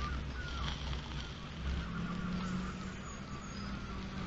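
A steady low engine hum, like a motor vehicle, that comes in about two seconds in, over a low outdoor rumble.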